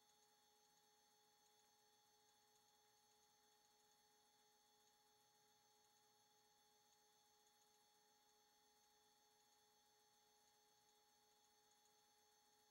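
Near silence, with only a faint steady hum of a few unchanging tones.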